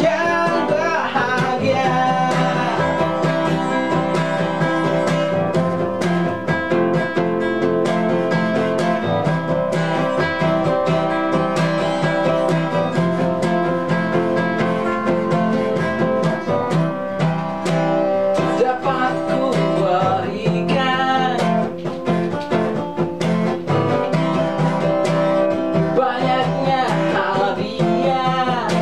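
Two acoustic guitars playing a song together, picked and strummed, with a man singing at times over them.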